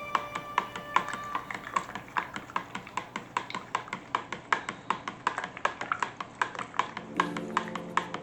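Background music with a fast, even clicking rhythm of about five sharp clicks a second.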